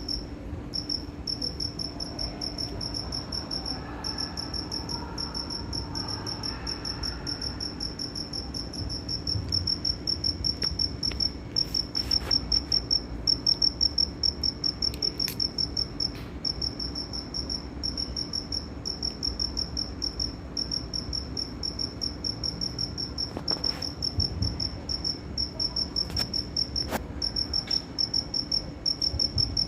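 Cricket chirping: a high-pitched, rapid pulsed trill that runs on in long trains with brief pauses between them.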